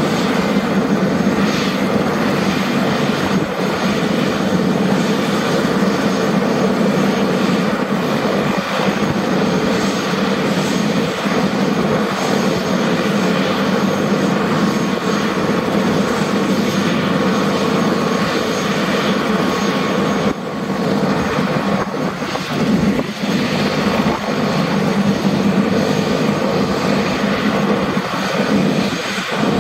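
Airbus H125 (AS350 AStar) helicopter on the ground with its Arriel turboshaft engine running and main rotor turning during start-up: a steady turbine tone over a broad, even running noise.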